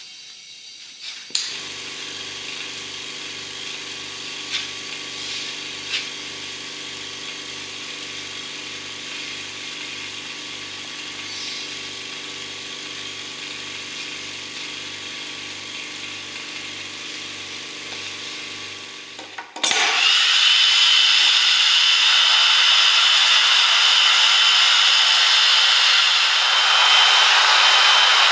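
Vacuum pump starts about a second in and runs steadily with a low pulse about twice a second, drawing a vacuum to degas epoxy resin in a vacuum chamber. About two-thirds of the way through it gives way to a much louder steady blowing hiss with a high whine from a heat gun.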